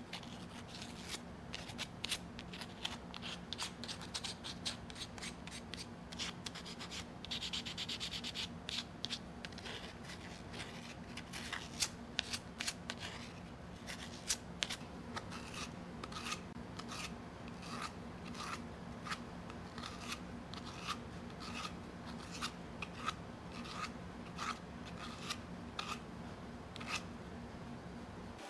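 Sandpaper rubbed by hand over small hardwood toy truck bodies, in short scraping strokes: quick and irregular at first, then a steady back-and-forth about one and a half strokes a second.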